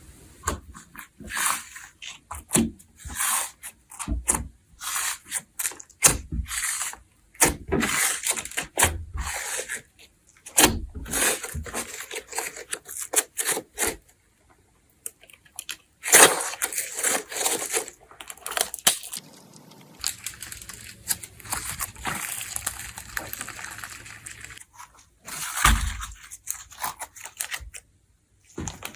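Slime being squished and kneaded by hand, giving irregular sticky clicks, pops and crackles. There is a short pause about halfway through.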